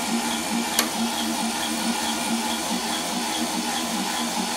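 Small electric motors and drive of a fischertechnik robot arm with pneumatic compressor running steadily: an even hum with a faint regular pulse, and a single sharp click just under a second in.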